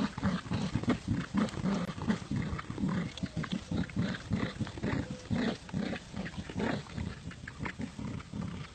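Dogs growling in play while tugging on a toy: a steady run of low, pulsing growls, about four pulses a second.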